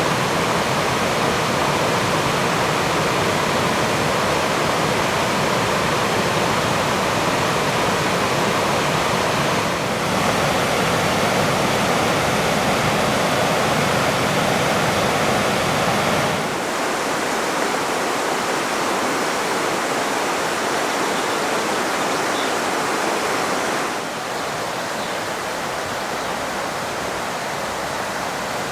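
Steady rush of fast-flowing mountain water. Its loudness and tone change abruptly three times, about 10, 16 and 24 seconds in.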